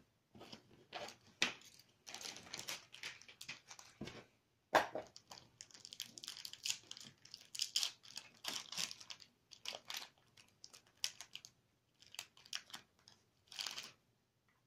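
Pokémon card packaging being torn open and crinkled by hand: the collector's album wrapping and the Sun and Moon booster pack. It comes as irregular crackling rustles with a few sharper rips.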